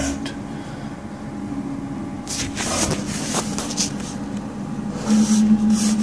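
A steady low-pitched hum of unknown origin, recorded on a phone, growing louder about five seconds in, with a few brief hissing noises in the middle.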